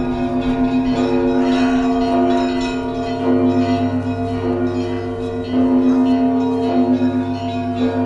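Russian Orthodox church bells ringing: fresh strikes about once a second over long, steady tones of larger bells that go on sounding with a slow pulse.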